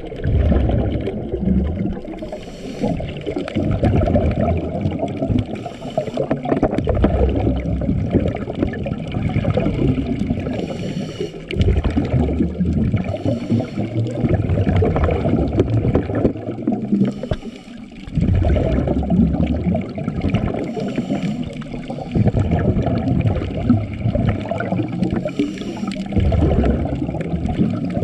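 Muffled rush and churn of water as heard underwater, with short bursts of bubbling every three to four seconds and a brief lull near the end.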